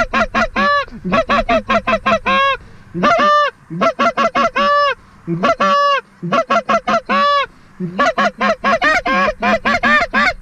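A hand-blown goose call working geese: fast strings of clucks and honks in bursts of three to six notes, with short pauses between bursts.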